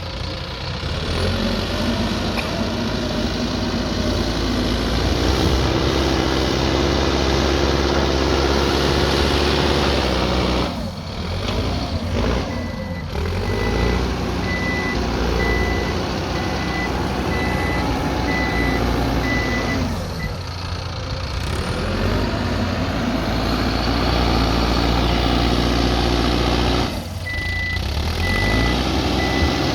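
Diesel engine of an earthmoving machine working, revving up and easing off again and again. A reversing alarm beeps in two spells, one around the middle and one near the end.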